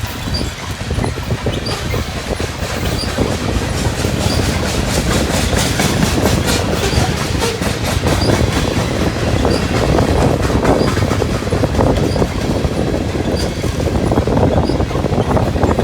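Train passing close by: a steady rumble of wheels on the rails with a clickety-clack of the wheels over the rail joints.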